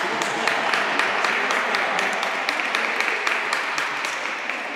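Spectators clapping and cheering: sharp individual hand claps, a few a second, over a steady crowd hiss, easing slightly toward the end.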